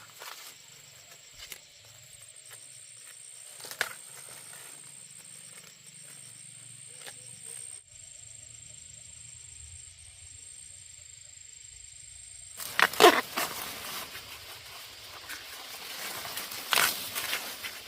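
Steady high-pitched insect trilling with a few scattered clicks. About two-thirds of the way in, louder rustling and crackling starts, as of dry plant material being handled or walked through.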